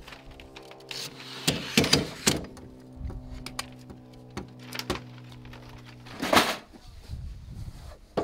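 Soft background music of held chords, which stops about six seconds in, over a series of clicks and clacks from a telescoping rooftop-tent ladder being pulled out and its sections locking. A louder clatter comes near the end.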